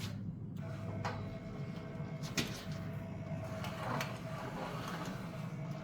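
Cordless drill running slowly to turn a spool and rewind MIG welding wire: a steady motor whine that starts about half a second in, with a few sharp clicks from the wire and spool.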